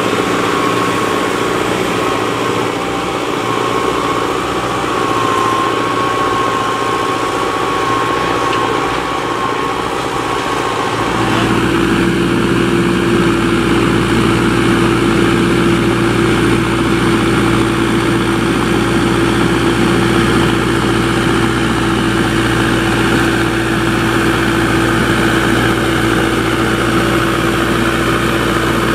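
Same Explorer 90 tractor's diesel engine running steadily under load while it pulls a five-shank subsoiler through the soil, with a thin high whine over it at first. About eleven seconds in the sound changes abruptly to a louder, steadier engine drone with a strong low hum.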